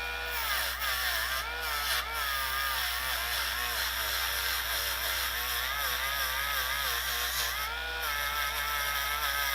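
Rotary tool with a wire brush running, scrubbing the last of the paint off a die-cast toy car body. Its whine sags and wavers as the brush is pressed into the metal, and steps back up near the end as the load eases.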